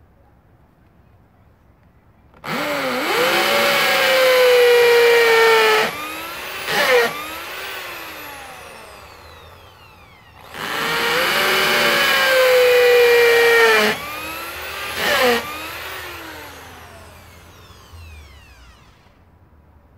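Handheld electric power tool run twice: each time the motor whines up, runs steadily for about three and a half seconds with its pitch slowly sinking, is released, gets one short blip of the trigger, then winds down with a falling whine over a few seconds.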